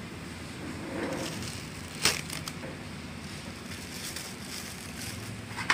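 Thin plastic bag crinkling as it is pulled open, with a sharp crackle about two seconds in, over a low steady hum.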